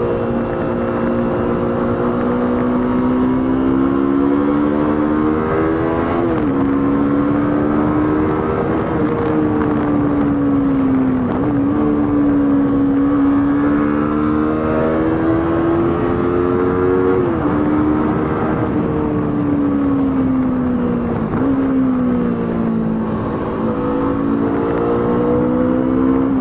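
Yamaha R3 321 cc parallel-twin engine under way, its note climbing steadily with the revs and dropping sharply at each of four gear changes, over wind and road noise.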